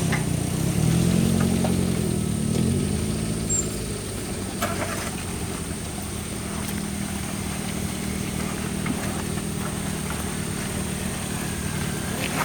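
Engine of a Suzuki Jimny-based off-road trial machine revving up and down for the first few seconds, then running steadily at a lower speed. A couple of short knocks come about five seconds in.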